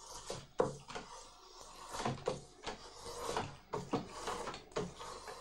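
Hand woodworking on thin spruce wood for chip boxes: irregular sharp wooden knocks mixed with scraping and rustling of tools and wood.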